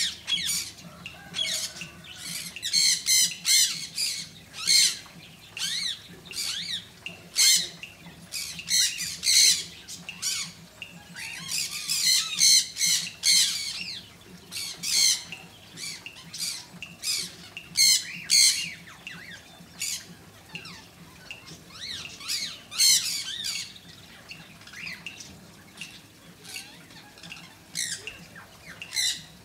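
Birds squawking: many short, high, wavering calls in irregular clusters, sometimes several a second.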